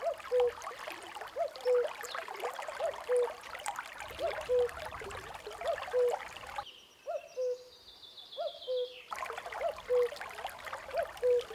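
Common cuckoo calling "cuck-oo" over and over, a higher note dropping to a lower one, about nine calls at a steady pace of roughly one every second and a half.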